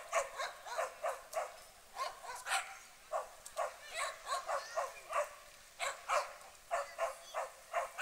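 A quick, irregular series of short, sharp animal calls, about three a second, with a brief pause a little past the middle.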